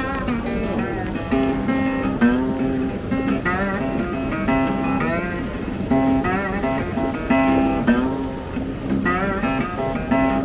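Background music led by guitar, with plucked and strummed notes over a repeating low bass line.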